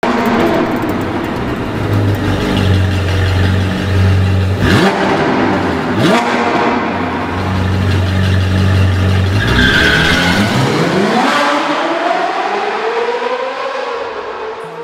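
Sports car engine revving hard over a deep steady rumble, with two sharp rev rises about five and six seconds in. Near the end a long rise and fall in pitch fades away.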